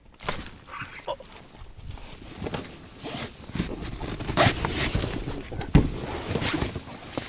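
Irregular rustling and clicking of fishing tackle being handled in a boat, with several sharper knocks, the loudest in the last third.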